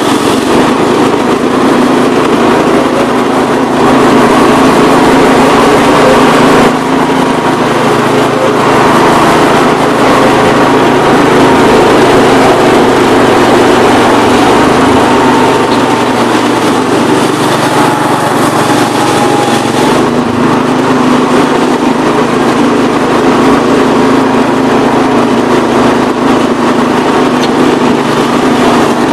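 Gravely 432 tractor's engine running steadily under load as it drives a rotary power brush sweeping snow off a path.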